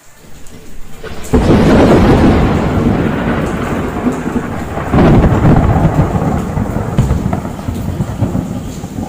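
Rain with thunder. A loud rumbling roll starts suddenly about a second in and dies away, and a second roll swells about five seconds in and fades slowly.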